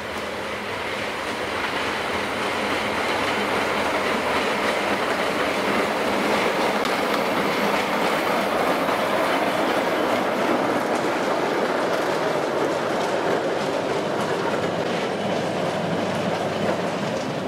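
Narrow-gauge steam locomotive passing close by, with its train of small wagons rattling over the rail joints; the sound builds over the first couple of seconds and then holds steady.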